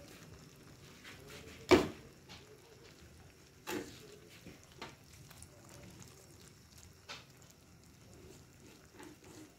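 Quiet kitchen background broken by a few sharp knocks and clicks, the loudest about two seconds in and another about four seconds in: the clatter of cooking utensils around the wok.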